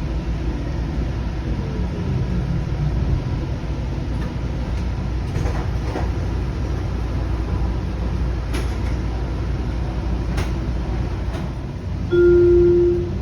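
Interior of a Sound Transit Link light-rail car running along the track: a steady low rumble, a falling motor whine at the start and a few sharp clicks. Near the end a loud single steady tone sounds for about a second.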